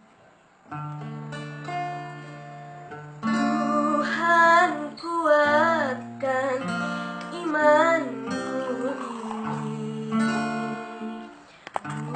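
A woman singing an ornamented, wavering melody over held accompaniment chords. The accompaniment starts alone about a second in, and the voice comes in about three seconds in.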